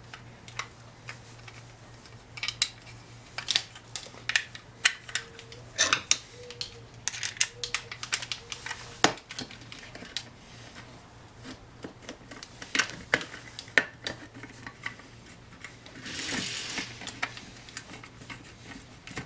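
Irregular light clicks and metallic clinks of hand tools and small metal parts being handled during a fastening job, with a brief hiss near the end.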